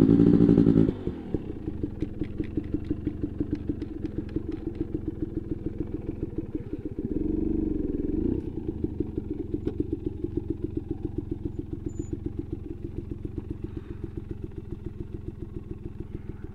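Dirt bike engine running: revved briefly at the start, it drops to an idle with an even pulse, is blipped again about seven seconds in, then settles back to idle.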